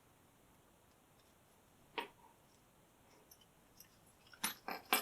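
Small metallic clicks from a padlock and hand-held lock-picking tools, a homemade tension wrench and hook: one sharp click about two seconds in, a few faint ticks, then a quick run of louder clicks and rattles near the end.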